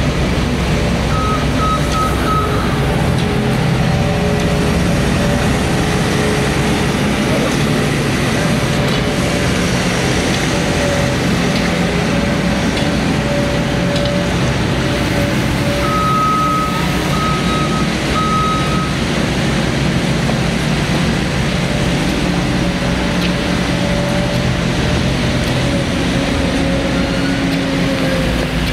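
Skid-steer loader's engine running steadily and loudly, its reversing alarm beeping in short runs of three or four, about a second in and again about halfway through.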